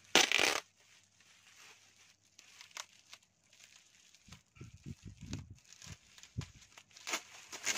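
Thin plastic bags crinkling as plastic-wrapped clothes are handled and lifted out of a cardboard box. The loudest rustle comes right at the start, followed by lighter crackles and a few soft bumps of handling, with more crinkling near the end.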